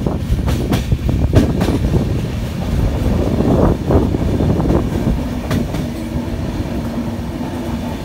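Passenger train heard from on board while moving: a continuous rumble of wheels on the track, with irregular clicks as the wheels pass over rail joints. A low steady hum joins the rumble about five and a half seconds in.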